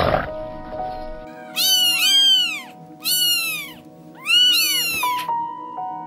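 A domestic cat meowing three times, each meow rising then falling in pitch, over background music.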